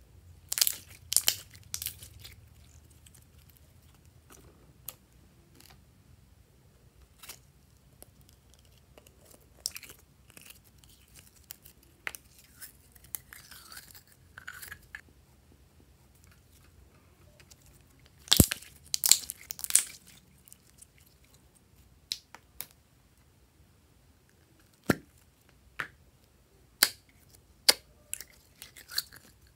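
Glossy slime and its small plastic tubs being handled: sticky crackles, squelches and clicks in scattered clusters, the loudest a dense run of crackles about eighteen seconds in. Near the end come single sharp clicks about a second apart.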